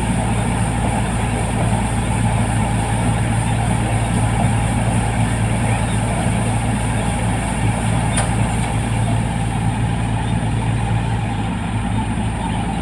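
Rice combine harvester's engine and machinery running with a steady, loud drone, with one faint click about eight seconds in.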